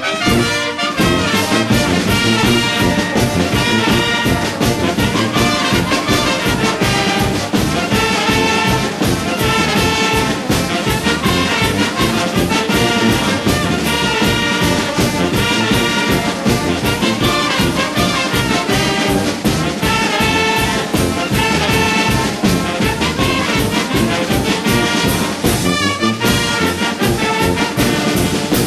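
Festive brass band music, with trumpets and trombones over a steady, fast beat.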